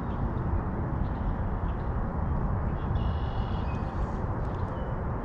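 Steady low outdoor background rumble, with a brief high chirp about three seconds in.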